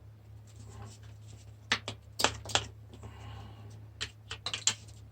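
Sharp clicks and knocks of metal parts being worked and handled while a corroded microwave is taken apart, a few single knocks then a quick cluster near the end, over a steady low hum.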